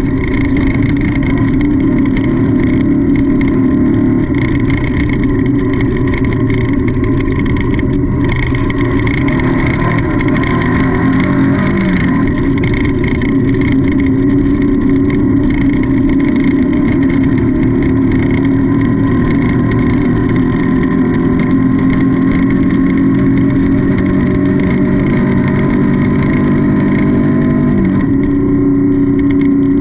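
Off-road race car's engine running hard at speed, loud and continuous. Its pitch drops and recovers about twelve seconds in and steps to a new steady note about two seconds before the end.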